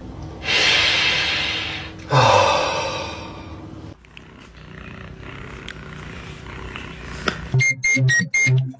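A domestic cat hissing twice in quick succession, the second hiss with a low growl under it: a cat objecting to being kissed. Near the end a quick electronic beat with short high beeps starts.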